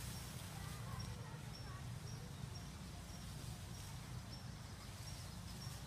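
Forest ambience: a short, high chirp repeats about twice a second over a low, steady rumble, with faint scattered calls.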